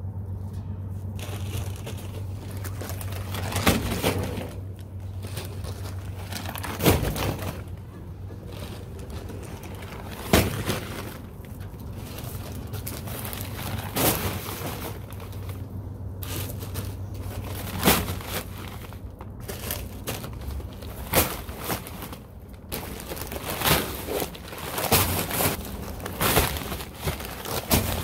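Full paper yard-waste bags of shredded leaves being lifted and dropped into a trailer bed. Stiff paper crinkles and rustles, with a thump each time a bag lands, every three or four seconds and more often near the end.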